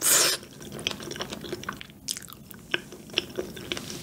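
A loud, short slurp as a mouthful of rosé tteokbokki is drawn in off chopsticks. Close-miked chewing follows, with small wet clicks scattered through it.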